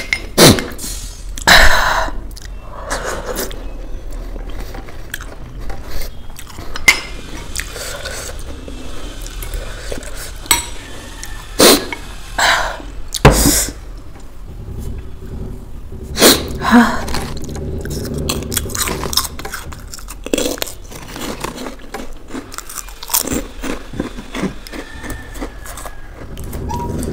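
Close-up eating sounds: chewing noodles, with sharp clinks of a metal fork and spoon against a glass bowl every few seconds.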